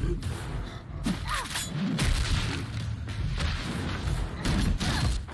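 Animated fight sound effects: a string of heavy booms, thuds and shots over low rumble, with faint background music.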